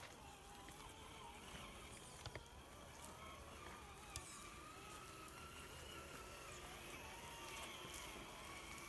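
Faint whine of a Traxxas TRX-4 RC crawler's electric motor and gears, its pitch wavering up and down with the throttle, with a couple of sharp ticks about two and four seconds in.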